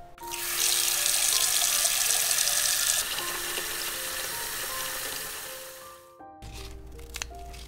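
Kitchen tap running into a pot of raw duck pieces. The water rushes loudly for about three seconds, runs more softly after that, and cuts off suddenly about six seconds in. Background music plays throughout.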